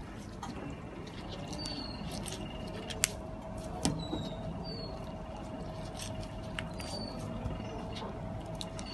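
Outdoor background rumble with short, high, falling chirps every two to three seconds, like a small bird calling, over a steady hum. Two sharp clicks come about three and four seconds in.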